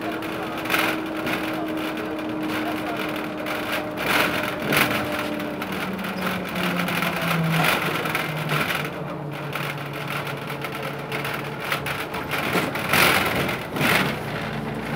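Ikarus 280 bus heard from inside while under way: the diesel engine runs with a steady drone whose pitch steps down about halfway through. Repeated rattles and knocks come through the cabin over the road.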